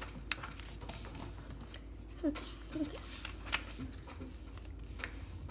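Soft handling of a paper book's pages, with a few light taps and rustles of fingers on the paper, and two brief quiet vocal sounds a little over two seconds in.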